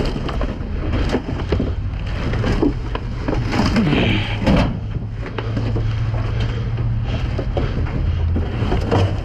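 Scrap metal being dug through and pulled from a dumpster: irregular knocks, clanks and scrapes, over a steady low hum.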